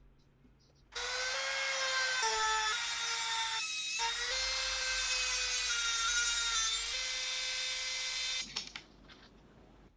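A hand-held rotary tool with a sanding drum runs at high speed, sanding a block of wood. It makes a steady high whine whose pitch dips a little as the drum bears on the wood. It starts about a second in, breaks off briefly midway, and stops about eight seconds in.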